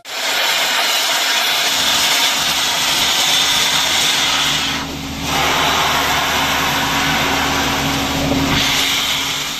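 Steam locomotive venting steam from its cylinder drains, a loud steady hiss over a low steady hum, easing briefly about halfway through.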